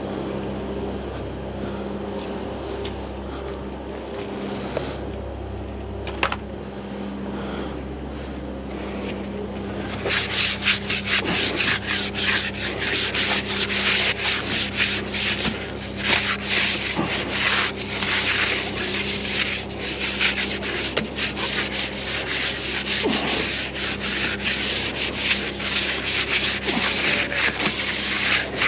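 A stiff bristle brush scrubbing a wet, soapy tractor wheel rim and hub in quick rubbing strokes, starting about ten seconds in. Before that only a steady low machine hum is heard.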